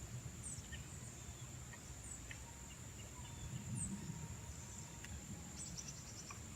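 Outdoor ambience by a pond: a steady high-pitched whine with short high chirps repeating about once a second, over a low rumble.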